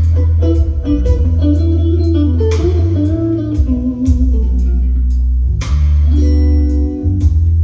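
Recorded music playing loudly over Revel M16 hi-fi loudspeakers: a guitar-led instrumental passage with a deep, steady bass line and a cymbal ticking about twice a second.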